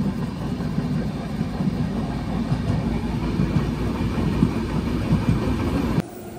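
A passenger train running at speed, heard from an open coach doorway: a steady rumble of wheels on rails. It cuts off suddenly near the end.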